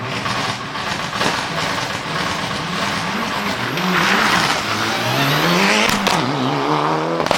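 Mitsubishi Lancer Evolution IX Group N rally car's turbocharged four-cylinder engine at full throttle, its revs climbing and dropping through gear changes as it passes, with a few sharp cracks from the anti-lag misfiring system.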